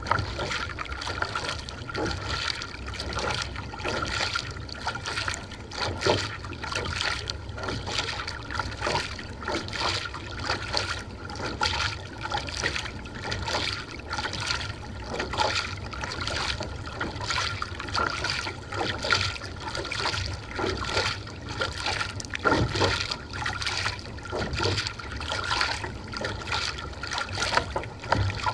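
Kayak paddle blades splashing into and out of the water on alternate strokes, with water trickling and dripping off the blades. The splashes come about once or twice a second.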